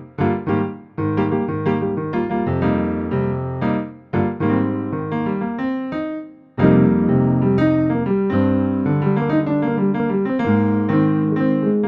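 Roland RD88 stage piano playing its Concert Jazz 1 grand piano sound: a phrase of chords and single notes. The sound dies away about four seconds in and again around six seconds, then comes back with a loud chord.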